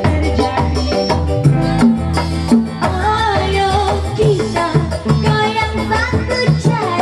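Live dangdut band playing a steady, danceable beat on kendang hand drums and bass, with a woman singing the melody over it.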